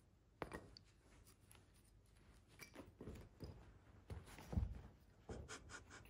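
Bengal cat scuffling and pouncing on a woven rug: scattered soft scratches and rustles of its paws, with a dull thump about four and a half seconds in as its body hits the floor.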